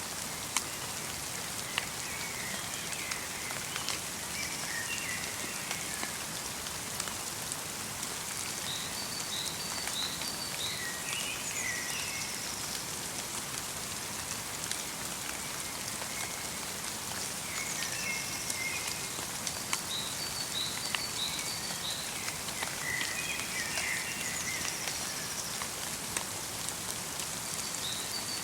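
Light rain mixed with snow falling steadily, an even patter with scattered single drops ticking. Small songbirds call over it again and again in short chirping phrases and quick runs of high notes.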